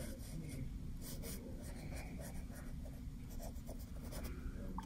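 Small flat paintbrush stroking ink across paper: a run of short, scratchy back-and-forth brush strokes filling in a swatch, over a steady low background hum.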